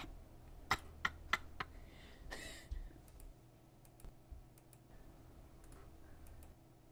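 Sharp clicks at a computer: four quick ones about a second in, then a short rustle and a few fainter clicks.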